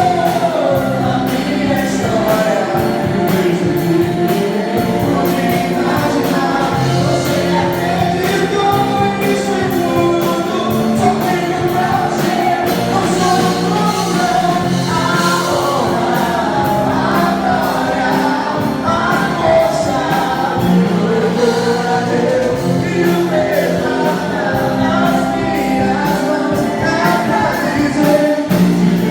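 Gospel worship song: a choir and lead voices singing over a band with a steady beat.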